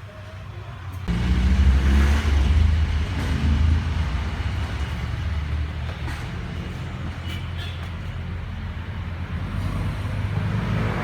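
Car running, a low rumble and road noise that rise abruptly about a second in, then settle to a steady drone.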